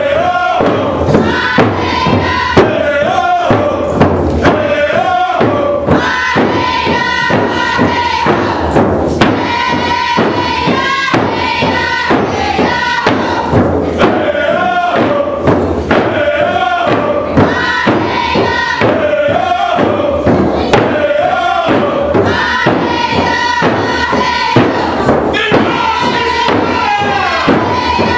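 Group of singers chanting a First Nations ceremonial song in unison to a steady beat on hand frame drums.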